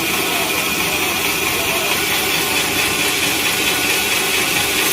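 Sawmill machinery running with a steady, even mechanical noise.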